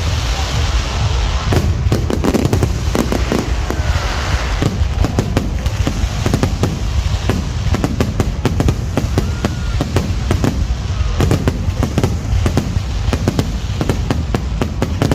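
Fireworks display: a dense, continuous barrage of bangs and crackles over a low rumble, many shells bursting in quick succession.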